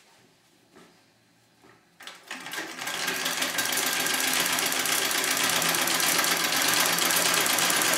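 A Singer 66 treadle sewing machine, quiet at first, starts up about two seconds in and within a second is running fast and steady, stitching free-motion through a quilt.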